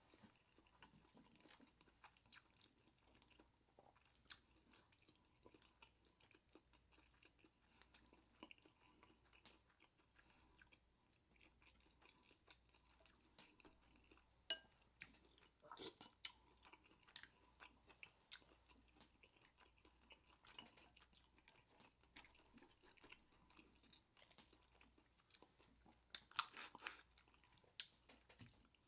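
Faint close-miked chewing of seafood boil, with scattered small mouth clicks. Near the end comes a short, louder run of crackles as shellfish is handled and picked apart.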